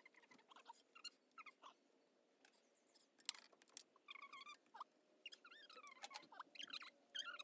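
Faint, high-pitched, wavering squeaky calls from an animal, in short runs near the start and again through the second half, with scattered light clicks.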